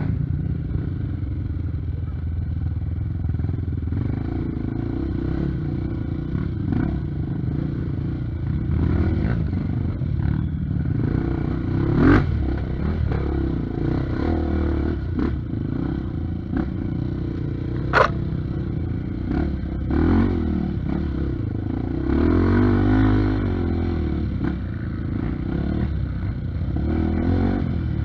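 Honda Tornado trail bike's single-cylinder four-stroke engine running at low revs and blipped a few times while the bike is worked slowly up a steep rocky climb. Two sharp knocks, about midway and two-thirds of the way through, stand out over the engine.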